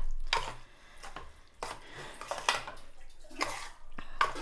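A spoon stirring cooked dal into cabbage curry in a cooking pan, clinking and scraping against the pan about five times, roughly once a second.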